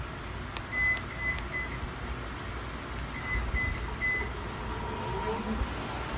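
Two sets of three short, high electronic beeps, about a second in and again about three seconds in, as the Bell+Howell socket ceiling fans are switched on at high speed. Near the end a faint rising whine and a steady hum come in as the DC fan motors spin up.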